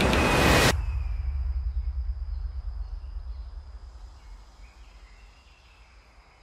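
A loud, harsh, grating noise cuts off abruptly under a second in, leaving a deep rumble that fades away to quiet. Faint bird chirps and a thin steady high tone remain.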